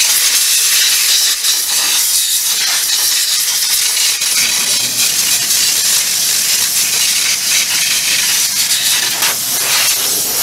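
Compressed-air blow gun hissing in one long blast with a few brief dips, clearing mouse-nest debris out of the cooling fins on the cylinder head of a Polaris Trail Boss 250 engine.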